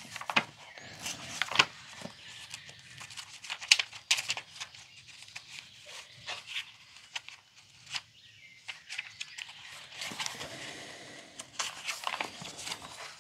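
Pages of a Bible being turned one after another: a string of short, sharp paper rustles and flicks at an irregular pace.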